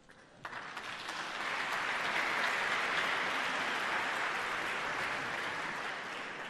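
A large audience clapping in an auditorium. The applause breaks out suddenly about half a second in, swells, then slowly dies away near the end.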